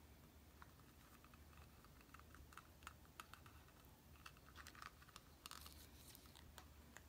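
Near silence with faint, scattered small clicks and light scratching as a tube of E6000 glue is run along the strap of a plastic jelly slider and the slider is turned in the hand.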